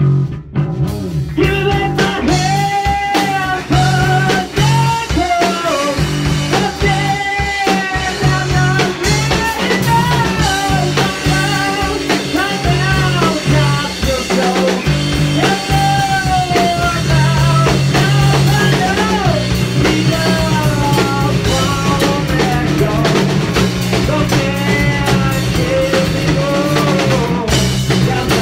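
A rock band playing together: drum kit, electric bass and electric guitar, with a melody line that bends in pitch over the top.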